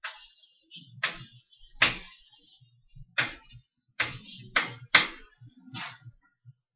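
Chalk writing on a blackboard: a string of sharp taps and short scratching strokes, about nine in all, spaced irregularly as the letters are written.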